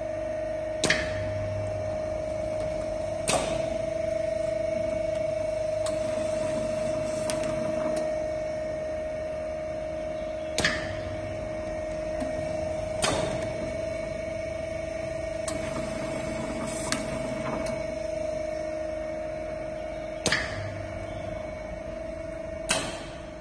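Leather edge painting machine running with a steady hum, broken by sharp clacks in pairs about two and a half seconds apart, as its automatic clip conveyor works.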